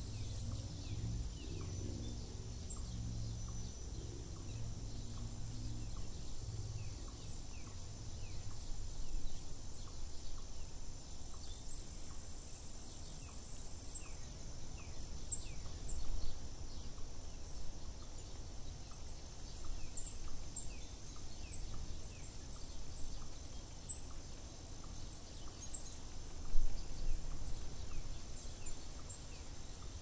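Outdoor nature ambience of many small birds chirping in short, quick calls over a steady high hiss and a low rumble, the rumble strong for the first eight seconds or so before dropping back. One brief loud sound stands out about 26 seconds in.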